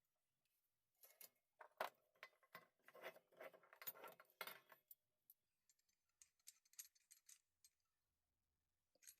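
Faint metallic clicks and clinks from metal tool parts being handled. There is a busy cluster in the first half, then a few scattered ticks.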